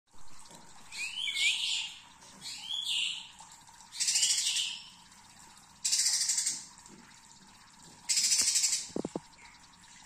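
A young green leafbird (cucak ijo) calling in five short phrases a second or so apart: the first two are curling whistled glides, the later three harsher, buzzing rasps.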